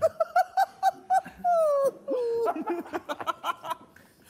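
High-pitched squealing laughter in quick short bursts, about five a second, broken in the middle by two long falling wails.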